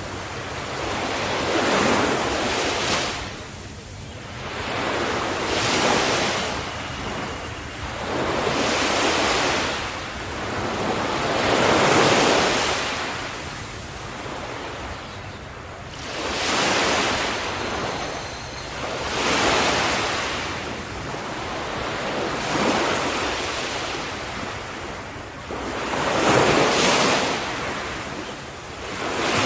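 Ocean waves washing onto the shore, one surge of surf swelling and fading every few seconds.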